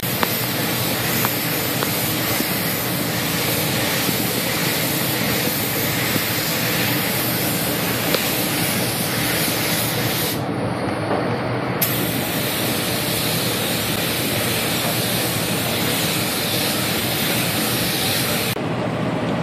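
Compressed-air hiss of a gravity-feed paint spray gun atomising orange paint, running steadily as the base coat is laid onto a motorcycle fuel tank.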